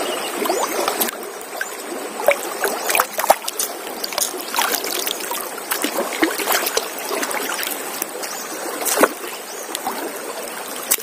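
Water splashing and dripping as a fish gill net is pulled by hand out of a flowing river, many small sharp splashes over the steady rush of the current.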